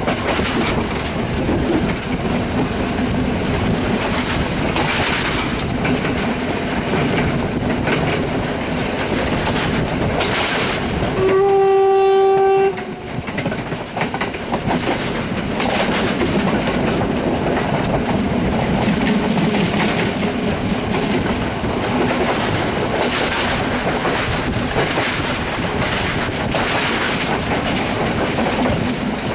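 Passenger train running at speed, heard from an open coach window: a steady rumble with wheels clicking over rail joints. About eleven seconds in, a train horn sounds one steady blast of about a second and a half.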